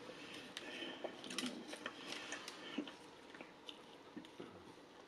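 Faint eating sounds of crispy fried chicken: scattered small crackles, clicks and wet mouth sounds from chewing and pulling the crusted meat apart.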